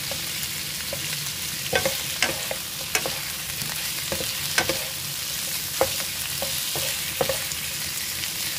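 Squid, onion and red chili stir-frying over high heat in an oiled frying pan: a steady sizzle, with the cooking utensil clicking against the pan now and then as it is stirred.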